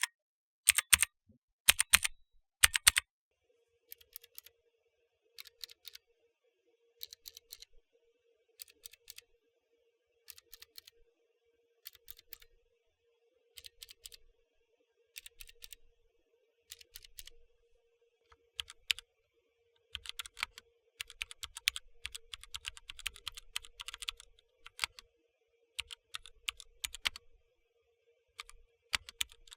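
Mechanical keyboard switches. First Outemu Blue clicky switches are pressed one key at a time, each stroke giving a pair of clicks about every second and a half. Past the middle it turns to fast continuous typing on Outemu Red linear switches. A faint steady hum sits underneath.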